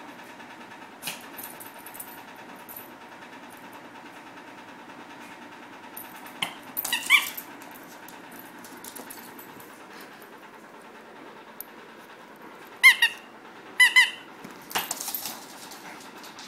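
Squeaky rubber chicken dog toy being bitten by a small dog, giving short squeaks: a cluster about seven seconds in and two sharper ones near the end, with some scuffling and clicks between.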